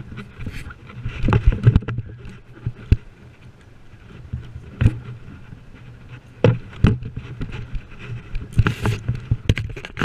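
Handling noise from a chest-mounted action camera: rubbing and scraping against the wearer's shirt, with irregular sharp knocks as he moves and handles a fishing rod, over a low steady hum.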